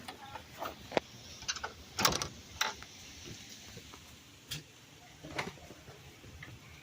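A handful of scattered knocks and clicks, the loudest about two seconds in, over a low background.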